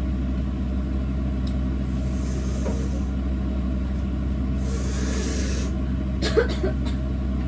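A steady low mechanical hum, with two short hisses a few seconds apart and a quick clatter of knocks near the end.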